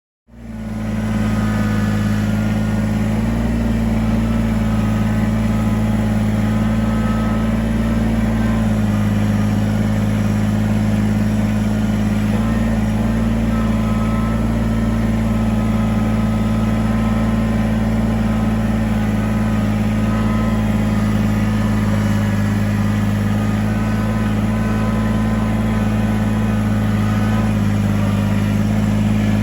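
Kubota BX23S subcompact tractor's three-cylinder diesel engine running steadily at a constant speed. It fades in over the first second.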